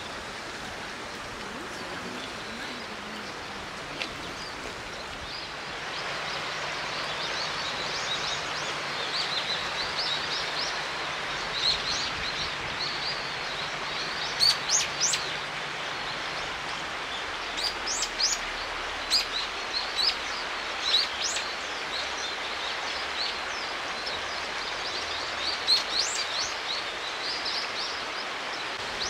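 Steady rush of a stony river, a little louder from about six seconds in, with small birds chirping in many short high calls from about eight seconds on.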